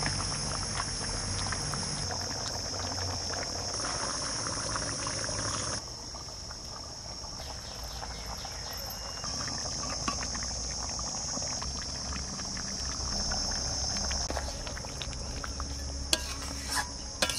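Thick mutton korma bubbling in an open karahi on a wood fire, under a steady high chorus of insects. A few sharp clicks near the end, as a spatula works in the pot.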